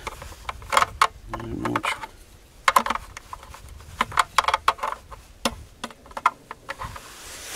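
Scattered clicks and taps of plastic on metal and plastic as .22 magazines are pressed into the storage slots inside the hollow ABS plastic buttstock of a Henry U.S. Survival AR-7 rifle.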